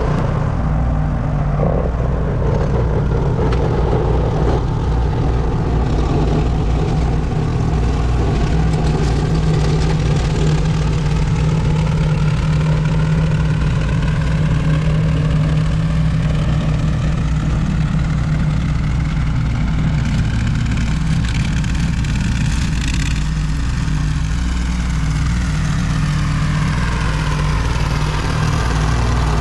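An engine running steadily at a constant speed, with a slowly shifting whooshing tone over it in the second half.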